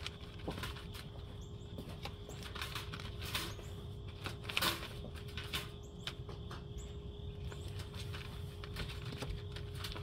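A cat shifting about inside a wire live-trap cage, giving scattered clicks, scrapes and light rattles of the wire, the loudest a little before the middle. A faint steady hum runs underneath.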